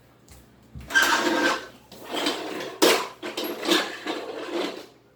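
Small hard plastic toy parts clattering and rattling as a toy boat set is handled, a string of clacks and rustles starting about a second in.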